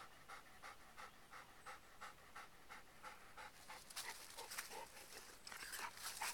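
Faint rapid panting, about three quick breaths a second, with a few louder breaths in the second half.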